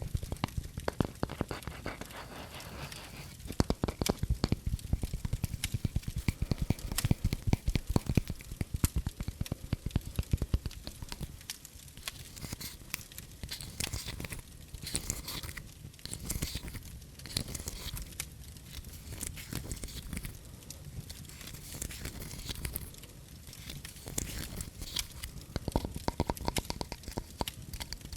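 Close, dense crackling and crinkling clicks in irregular bursts, heaviest in the first half and again near the end.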